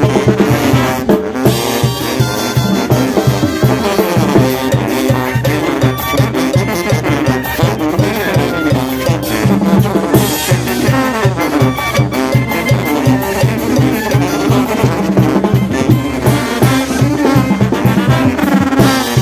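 Oaxacan brass band (banda de viento) playing live dance music: sousaphones pump a steady bass beat under trombones and trumpets.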